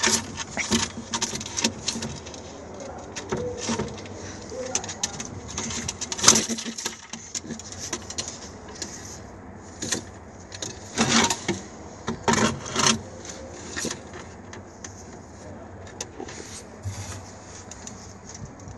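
Domestic pigeon slapping its wings at a hand reaching into its wooden nest box: irregular sharp wing slaps and brief flurries of flapping feathers with scuffing on the wood, in several bursts, the biggest about six seconds in and again around eleven to thirteen seconds in.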